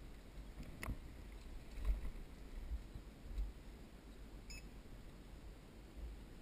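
Low rumble of movement and handling noise on the camera, with a couple of knocks in the first two seconds. About four and a half seconds in, a short electronic beep from a photo-scan station as a wristband is held to its reader.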